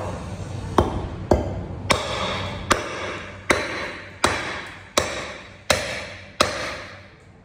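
Forged train-spring-steel jungle knife chopping hard into a block of dense old ironwood (lim): about nine sharp strikes, roughly one every three-quarters of a second, each with a short ringing tail. These are full-force test chops to see whether the blade chips.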